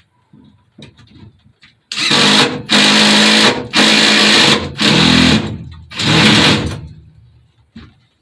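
Ryobi cordless drill boring a 3/4-inch spade-bit hole into a plywood benchtop. The trigger is squeezed in five loud bursts of about a second each, after a few light knocks.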